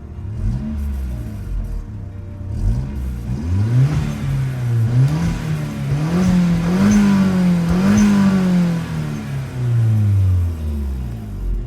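Audi 1.8T turbocharged four-cylinder, fitted with a catless test pipe into the stock exhaust, revving up, holding high revs with small rises and dips, then dropping back down.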